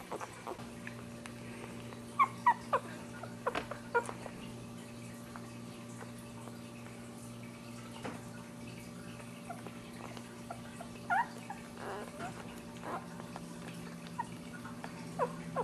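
Ten-day-old dachshund puppies squeaking and whimpering in short high cries while they nurse, with a cluster of loud squeaks about two to four seconds in and a few more around eleven seconds. A steady low hum runs underneath.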